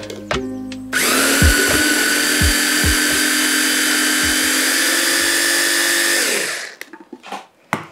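Electric mini chopper with a glass bowl pureeing roasted pumpkin and white beans into a dip. The motor starts about a second in, runs steadily with a high whine for about five seconds, then winds down.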